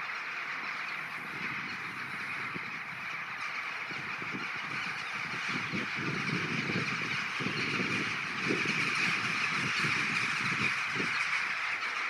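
Massed calling of a huge flock of rooks and jackdaws flying over at roosting time: a dense, unbroken din of caws and chacks. An irregular low rumble joins in about halfway through, and the whole grows a little louder.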